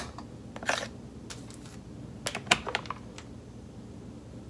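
Light, irregular clicks and knocks of hard plastic from a two-piece rice-washing colander, a white strainer basket nested in a pink bowl, being handled and turned. There is a sharp click right at the start and a cluster of clicks around the middle.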